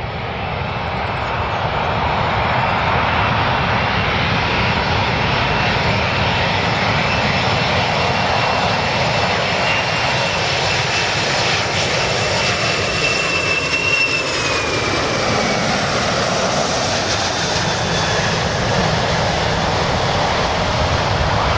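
Boeing 747-400 on final approach, its four turbofan engines running in a steady jet roar at landing power. A thin high whine drops in pitch about fourteen seconds in as the airliner passes close by.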